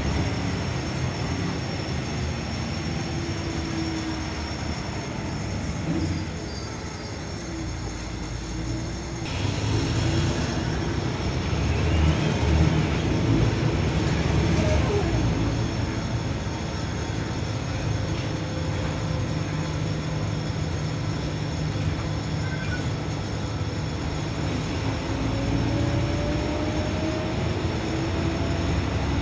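Volvo B12BLEA articulated bus running, heard from inside the cabin: a steady low engine and drivetrain drone. It eases off about six seconds in, grows louder again from about nine seconds, and near the end a slowly rising whine is heard as it gathers speed.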